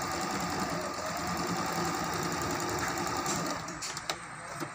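Juki HZL-20Z electric sewing machine stitching rapidly while sewing the second side of a buttonhole, then stopping about three and a half seconds in. A few light clicks follow near the end.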